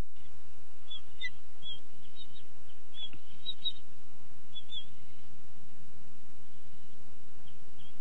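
Bald eagles on the nest chirping: about a dozen short, high, slightly falling chirps, some in quick pairs, clustered in the first five seconds, with a few fainter ones near the end, over a steady outdoor hiss.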